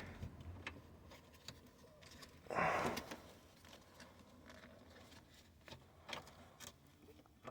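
Faint handling noise of hands working a plastic wiring connector through a steering column: scattered small clicks and knocks, with one louder rustling scrape about two and a half seconds in.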